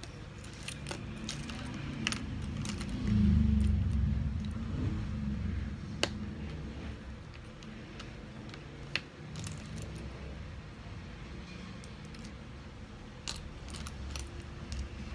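Small plastic building bricks clicking and clattering as they are picked through and pressed together by hand, with a few sharp clicks. A low rumble swells about three seconds in and is the loudest sound.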